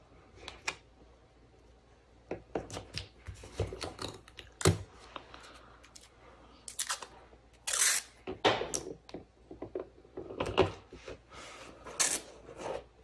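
Washi tape being pulled off its roll, torn and smoothed onto planner paper: a series of short rips, rustles and taps, with a couple of longer peeling rips about halfway through.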